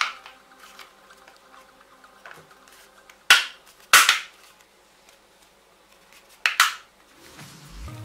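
Plastic snap latches of a Tefal BF26 kettle base clicking as the bottom cover is pressed on by hand. There are about five sharp clicks, the last two close together.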